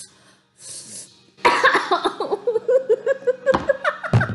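A woman's vocal reaction to the burn of red chili pepper: a short breathy exhale, then a cough and a long run of rapid, pulsing laugh-cries. A dull knock near the end.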